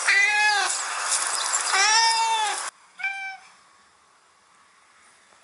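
Recorded cat meows played from a smartphone animal-sounds app: two long meows that rise and fall in pitch, then an abrupt cut and one short, fainter meow about three seconds in.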